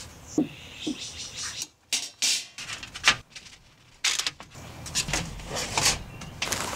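Thin steel parts of a folding ultralight fire pit being fitted together: the wire stand, slotted curved steel plate and base tray scraping and clinking against each other in a series of short strokes, with a sharp metal clank about three seconds in.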